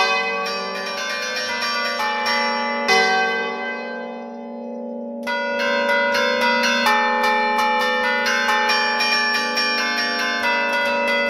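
Bronze church bells struck in quick succession from a hand-played ringing keyboard, an allegrezza tune of many pitches with long ringing tails. The strikes pause for about two seconds a little past the middle while the bells ring on and fade, then the quick strikes resume.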